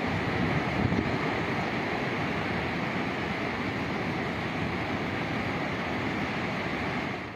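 Steady rushing roar of a muddy flood torrent cascading down a mountain ravine after heavy rain.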